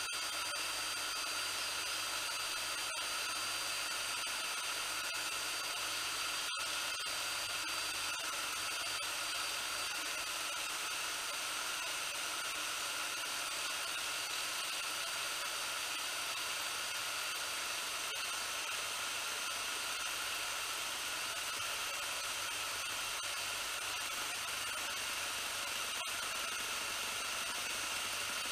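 Cordless drill running steadily at speed, driving a line despooler that winds old 20 lb monofilament off a large Shimano reel spool: a steady high motor whine.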